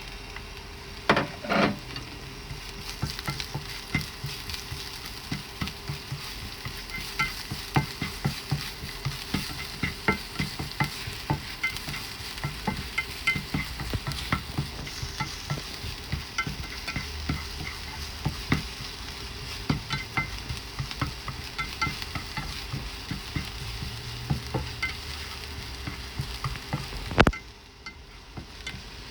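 Food sizzling as it is stir-fried in a hot pan, with a spatula clicking and scraping against the pan several times a second. A loud knock comes about a second in and another near the end, after which the sizzle dies down.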